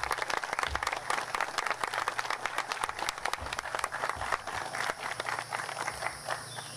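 Crowd applauding, a dense patter of many hands clapping that thins out and dies away near the end.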